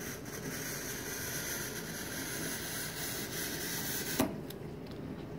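Razor-blade scraper scraping hard water deposits off a granite countertop, a steady dry rasp. It stops suddenly about four seconds in with a short click as the blade lifts off.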